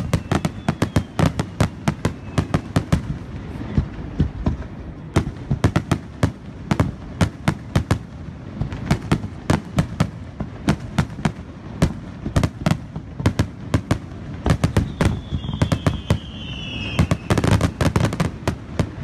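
Fireworks display: a rapid barrage of aerial shells bursting, many sharp bangs a second with crackling, thickening into a dense cluster near the end. A whistle falling in pitch sounds about fifteen seconds in.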